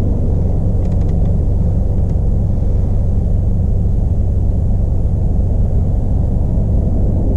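Subaru WRX's turbocharged flat-four engine and exhaust running with a steady, deep rumble, with a few faint ticks about one and two seconds in.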